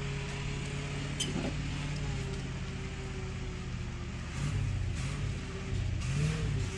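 Heavy truck engine running steadily, then from about four seconds in revving up and down several times as it works under load.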